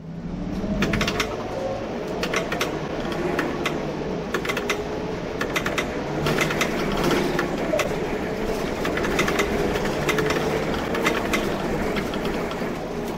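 Scania K230UB bus's diesel engine running under load as the bus drives through its ZF Ecomat 6HP502C automatic gearbox, heard from the driver's cab, its pitch drifting up and down. Frequent sharp clicks and rattles from the cab fittings sound over it.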